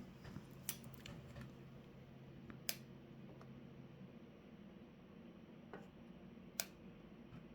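Scattered sharp, faint clicks of small plastic stylus parts being handled and fitted together during reassembly of a Wacom Bamboo pen, the two loudest about two and a half and six and a half seconds in, over a low hum that fades out about four seconds in.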